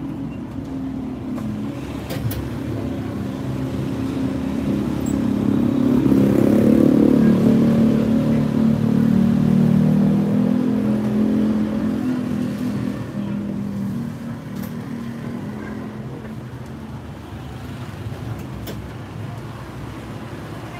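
A motor vehicle's engine running close by, growing louder over a few seconds and then slowly fading away. It is the loudest sound present, with a few faint clicks.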